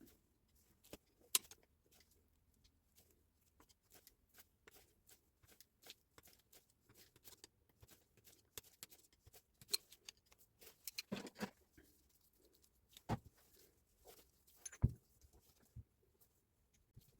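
Faint, irregular clicks and light knocks of hard parts and tools being handled, with a few sharper knocks scattered through.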